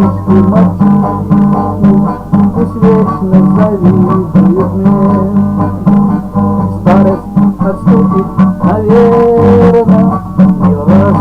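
Music: a guitar-accompanied song, the acoustic guitar strummed in a steady rhythm.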